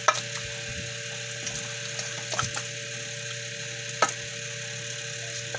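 Wet squishing of a hand rubbing marinade into raw chicken legs in a stainless steel bowl. A few sharp knocks stand out, the loudest right at the start and about four seconds in, over a steady background hum.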